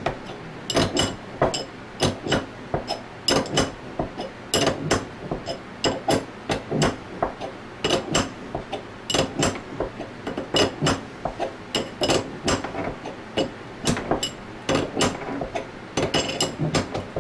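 Ratchet wrench worked back and forth on the bearing-puller fixture of a scroll pump, its pawl giving sharp metallic clicks, about two or three a second, with each stroke as the ball bearing is drawn out.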